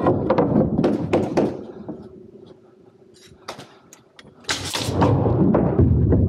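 Wooden 2x4 boards knocking and clattering as they are handled and set on a wooden stair frame. The noise drops away for about two seconds in the middle. About four and a half seconds in there is a loud, sharp burst, followed by more dense knocking.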